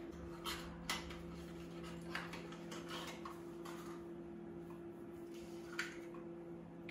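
Small plastic and glass toiletry bottles and jars clinking and tapping as they are picked up, opened and set down on a bathroom counter, several separate clicks over a steady low hum.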